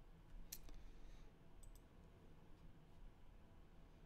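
Near silence with a few faint clicks at a computer: one about half a second in, then a quick double click near the middle.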